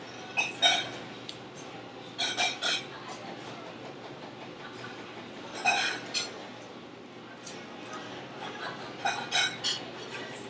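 Kitchen clatter: a few clusters of sharp, ringing clinks of metal utensils and dishes, every two to four seconds, over a steady low hum.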